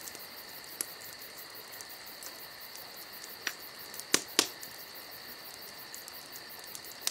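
Crickets chirping steadily, with scattered faint clicks and two sharper clicks about four seconds in.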